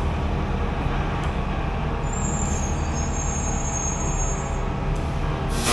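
Fire truck's diesel engine running steadily as it pulls up, with a thin high squeal about two seconds in and a short burst of air-brake hiss near the end.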